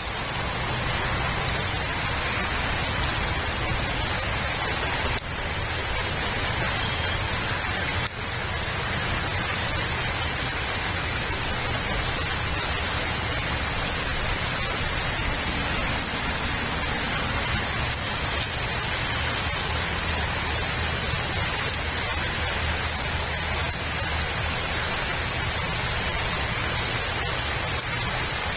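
Steady rain falling on and around the eagle nest, an even hiss that dips briefly twice.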